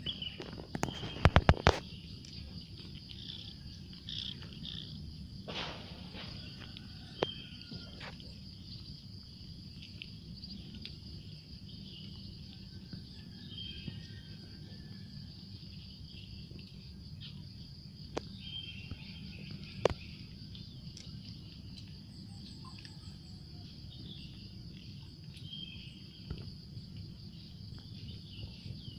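Kitten hiccuping after eating: small, short hics every few seconds. Under them runs a steady high buzz of insects, and a quick run of loud clicks comes about a second and a half in.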